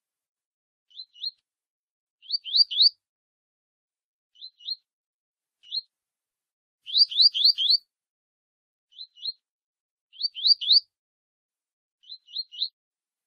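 Double-collared seedeater (coleiro) giving its short 'tui tui' song: groups of two to four quick rising notes repeated about every second and a half, with silence between. The louder groups come about two and a half, seven and ten seconds in.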